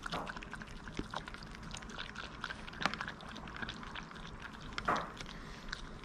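A Maltese licking whipped cream from a small plastic cup: quick, irregular wet licks and smacks, with two louder clicks about three and five seconds in.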